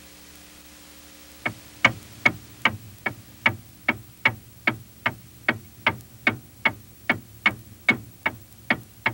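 Clock ticking in a steady, fast rhythm of about two and a half sharp ticks a second, starting about a second and a half in after faint tape hiss.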